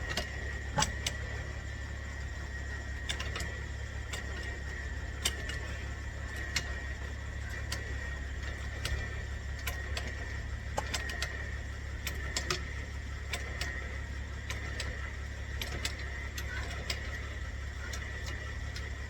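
Scattered sharp metallic clicks and ticks from a car jack and wheel tools being worked, over a steady low hum and a thin, steady high tone.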